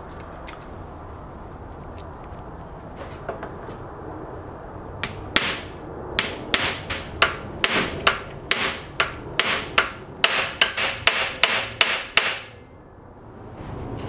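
A star nut being hammered into a bicycle fork's steerer tube with a star nut setting tool: a run of about twenty sharp metallic hammer strikes, roughly three a second, starting about five seconds in and stopping abruptly near the end. A few light taps come before the run.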